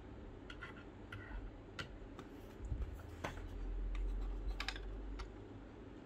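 Scattered light clicks and taps of hands handling a phone and a tablet at a desk, with a low rumble of handling in the middle.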